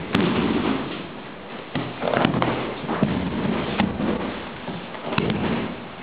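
Aikido practitioners falling and landing on the mats: a string of sharp thuds and slaps, the first right at the start and others about two, four and five seconds in, over a steady noisy room background.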